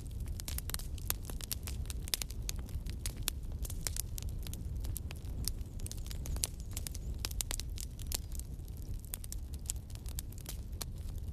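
Fireplace fire crackling, with many irregular sharp pops over a steady low rumble.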